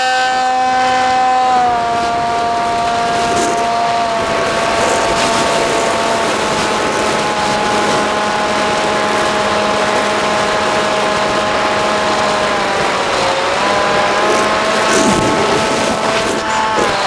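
Electric motor and propeller of a Bixler RC glider heard from the onboard camera: a steady high whine that steps down in pitch a few times as the throttle is eased, dips and rises again about thirteen seconds in, and drops just before the end, over the rush of wind.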